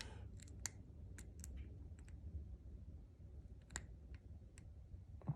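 Faint, scattered small metal clicks of a hook pick and tension bar working the pin stack of a Master Lock 410 lockout padlock, which is held in a false set. There are about eight separate ticks, spaced irregularly.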